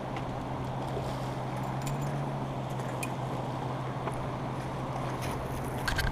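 Steady rush of river current flowing over a gravel bar, with a steady low hum underneath. A few sharp clicks and knocks come near the end.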